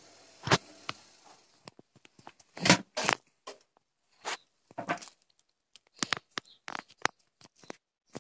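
Gorenje WA 50050 front-loading washing machine tumbling wet laundry in its drum on a 95° cotton wash: irregular short swishes and soft knocks as the load falls and slides, with brief quiet gaps between.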